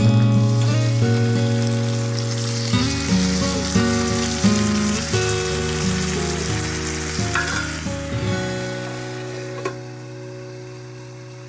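Gyoza sizzling as they fry in a pan, the sizzle fading out near the end, under gentle background music.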